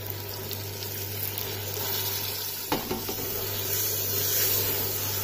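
Soaked whole brown lentils pouring into hot fried masala in a steel pressure cooker, sizzling, then stirred with a wooden spatula; the sizzle grows louder about two seconds in, and there is a single knock a little later.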